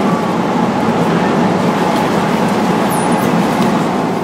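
Steady cabin noise of an Airbus A330 in cruise: an even, unbroken rush of airflow and engines, with most of its weight low in pitch.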